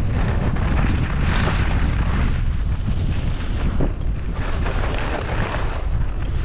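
Wind buffeting the microphone of a camera worn by a skier moving downhill, a loud steady rumble, with the hiss and scrape of skis on packed snow that swells about a second in.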